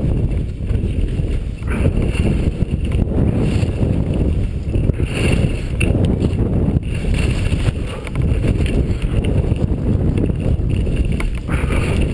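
Heavy, low wind noise on a helmet-mounted action camera's microphone while skiing downhill, with skis scraping over the snow now and then in the turns.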